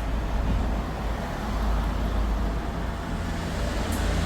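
Steady low rumble of motor-vehicle noise, with a faint click near the end.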